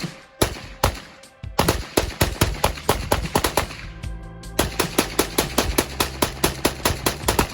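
Rapid semi-automatic gunfire: scattered shots at first, then a fast, even string of about three to four shots a second. Background music with a steady bass line comes in about two and a half seconds in, under the shots.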